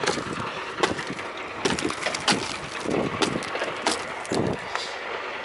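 Icicles of frozen mud and ice being knocked off a truck's wheel hub and mudguard, breaking away in a run of irregular sharp cracks and snaps.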